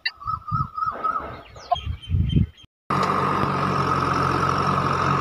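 Birds chirping over a few low thumps, then, close to three seconds in, an abrupt switch to a steady engine-like drone with a constant whine, louder than what came before.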